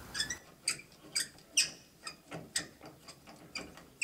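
Flaring pliers squeezed and turned in the end of a 12 mm PER pipe, giving a run of short squeaky clicks about two a second. The pipe end is being flared so that the fitting's insert can go in.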